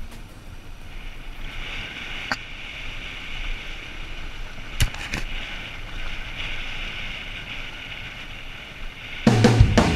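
Steady rush of wind and road noise from a dirt bike riding a gravel track, with a couple of sharp knocks. Music with a drum kit comes in loudly near the end.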